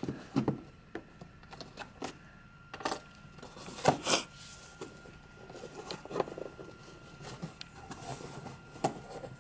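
A cardboard box being opened by hand: flaps lifted and packaging handled, with scattered light clicks and rustles and a louder scrape about four seconds in.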